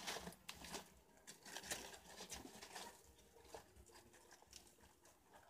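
Faint rustling and crackling of leaves and grass as a group of preás (wild cavies) move about and feed, with short clicks crowded into the first three seconds and fewer after.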